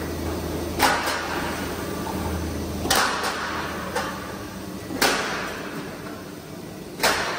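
Light-gauge steel framing roll forming machine running: four sharp bangs about two seconds apart, each ringing away, over a steady low hum.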